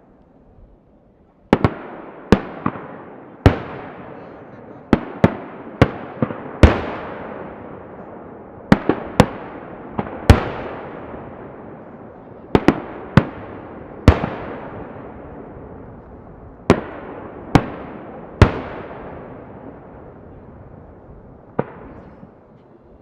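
Aerial firework shells bursting in a display, about twenty sharp bangs in irregular ones, pairs and quick clusters, each trailing off in a long echo.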